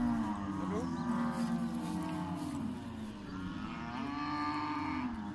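A bull bellowing in long, drawn-out calls while held down and castrated: one call running on into the first couple of seconds and a second starting about four seconds in.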